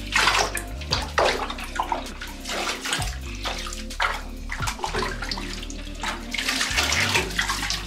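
Water sloshing and splashing in a bathtub as a wet puppy is washed in it, the splashes coming unevenly one after another.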